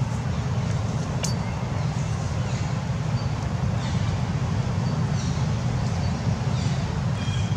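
Steady low outdoor rumble, with a few faint, short high-pitched chirps over it.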